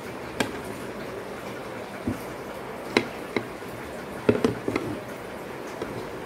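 Knife clicking and tapping against a plate while cutting a sponge cake: a few scattered clicks, with a quick cluster just past four seconds.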